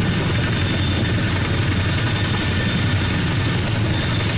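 CH-47 Chinook tandem-rotor helicopter running on the ground with both rotors turning: a steady low throb from the rotors and twin turboshaft engines, with a thin, steady high whine over it.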